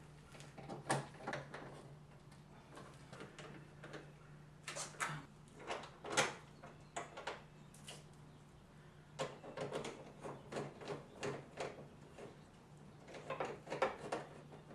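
Irregular clicks, knocks and rattles of hard plastic car body parts and hand tools being handled and fitted as the headlight and front bumper assemblies go back on, in clusters, over a steady low hum.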